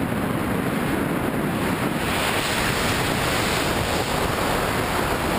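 Steady wind rushing over the camera microphone during a tandem parachute descent, an even roar with no other sound standing out.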